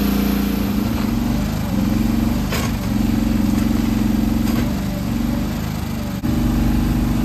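Huayee HY14C mini excavator's engine running under hydraulic load while the boom and bucket dig. The engine note dips and recovers several times as the hydraulics are worked, and changes abruptly near the end.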